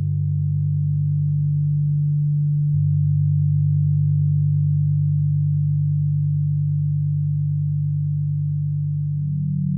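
Several steady, low electronic sine tones layered into a drone, generated by software from brainwave frequencies. One of the lower tones cuts off suddenly a little under three seconds in, and a slightly higher tone joins near the end.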